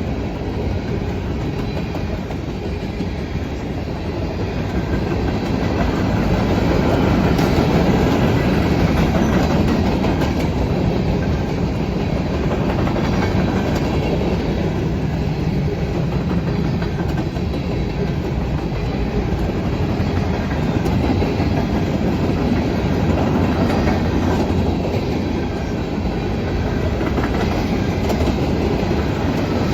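Norfolk Southern manifest freight train's cars rolling steadily past: continuous wheel-on-rail noise with the clatter of wheels over the rails.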